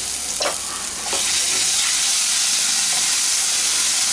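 Green chilli and garlic paste sizzling and spitting in hot mustard oil in a kadai, stirred with a wooden spatula; the hiss grows louder about a second in and then holds steady.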